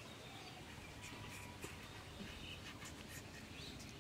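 Soft scrapes and clicks of raw green mango skin being peeled on a boti blade, with faint bird chirps in the background.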